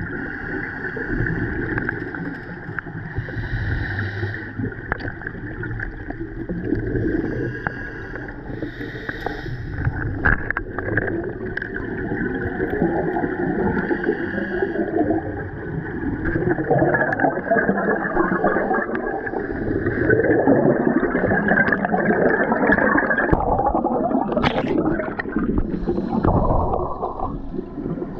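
Scuba breathing heard underwater: regulator breaths and exhaled bubbles gurgling past, swelling and falling every few seconds. A steady high hum runs underneath and stops near the end.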